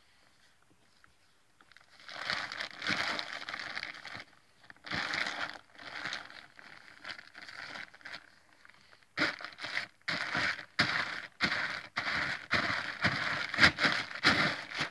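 A horse nosing into a plastic bag of dry dog food, crinkling and rustling the bag in irregular bursts that begin about two seconds in.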